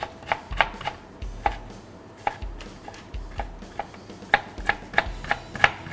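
Chef's knife slicing young ginger into thin slivers on a cutting board: a series of sharp knife taps on the board, two or three a second, sparser in the middle and quickening near the end.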